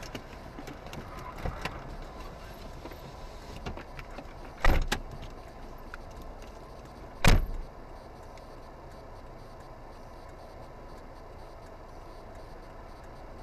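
Steady low running noise of a car, broken by two loud thumps, one about four and a half seconds in and one about seven seconds in, with a few faint clicks before them.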